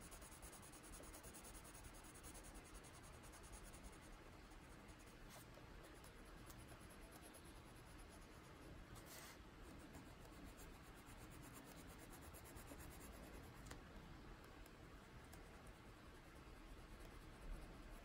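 Faint scratching of a Prismacolor colored pencil shading on paper, layering and blending colours.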